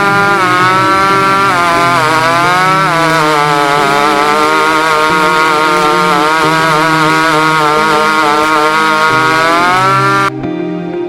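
Chainsaw running at full throttle while ripping a log in a homemade chainsaw mill, its pitch dipping and recovering several times as the cut loads it. It cuts off suddenly near the end.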